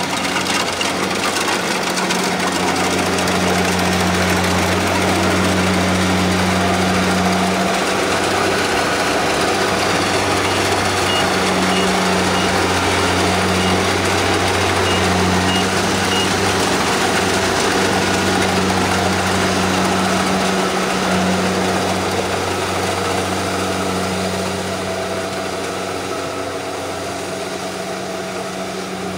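Kubota combine harvester's diesel engine and machinery running steadily under load while cutting rice, with a string of short, evenly spaced high beeps about midway; the sound grows a little fainter near the end.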